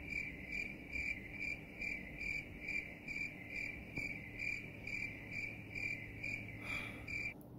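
Stock cricket-chirping sound effect: single chirps repeating evenly about two and a half times a second, stopping near the end. It is the classic 'crickets' gag for an awkward wait.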